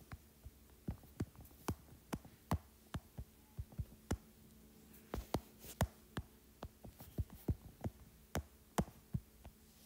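Irregular taps of a stylus or fingertip on a tablet's glass screen during digital drawing, a few sharp clicks a second, over a faint steady hum.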